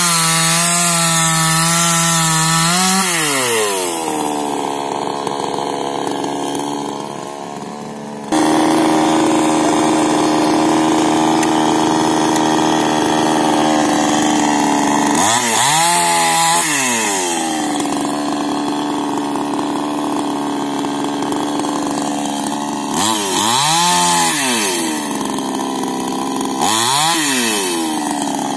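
Two-stroke petrol chainsaw running at full throttle and cutting wood, then dropping to a steady idle about three seconds in. It idles for long stretches and is briefly revved up and let back down three times: once about halfway through and twice near the end.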